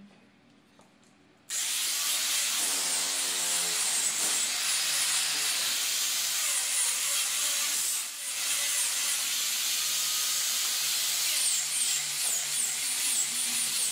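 Electric angle grinder with an abrasive disc switched on about a second and a half in, then running steadily as it grinds and sands the curved wooden volute, with a harsh hissing of disc on wood. It briefly eases off about eight seconds in, then bites again.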